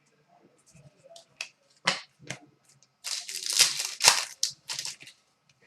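Trading cards being handled: a few sharp clicks and snaps, with about a second of sliding, rustling card noise about three seconds in.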